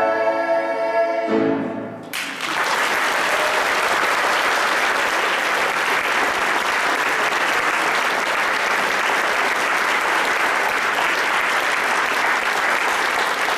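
A group of singers holds the final note of a song, which ends about two seconds in, followed by steady, sustained audience applause.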